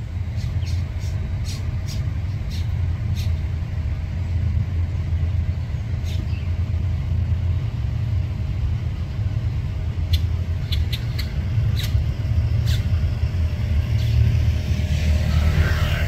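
Steady low rumble with short, sharp ticks over it: several in the first few seconds and a cluster about ten to thirteen seconds in.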